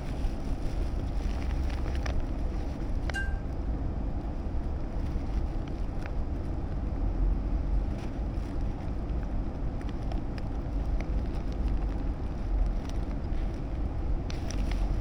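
Wind buffeting the microphone: a steady low rumble, with one brief high chirp about three seconds in.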